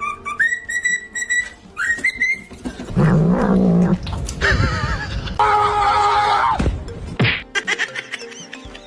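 Music with whistle-like tones sliding up twice near the start, then a loud, wavering held tone in the middle.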